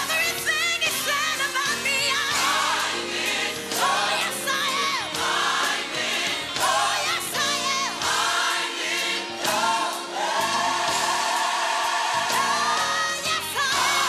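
Gospel song with choir singing over a backing track, the voices wavering on long held notes about ten seconds in.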